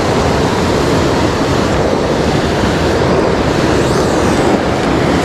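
Mountain stream rushing steadily, a loud even wash of water noise with no breaks.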